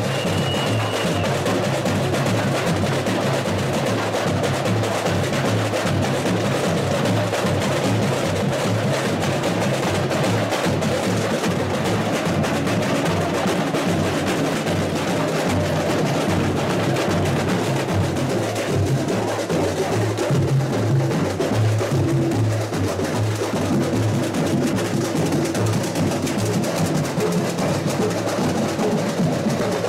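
Samba school bateria playing together in a steady, dense samba rhythm: surdo bass drums pulsing under many repinique drums struck with sticks.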